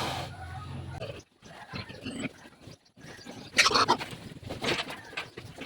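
Farm animal calls, with the loudest burst about three and a half seconds in, after two brief moments where the sound drops out entirely.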